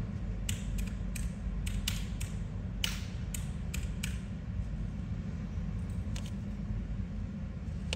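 A Zippo lighter being handled and checked, giving a quick run of sharp metal clicks, about a dozen over three and a half seconds, then a few more later.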